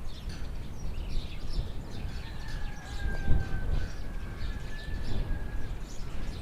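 Small birds chirping over and over above a low, steady rumble that swells briefly past the middle. A thin, steady whistle-like tone is held for about three seconds in the middle.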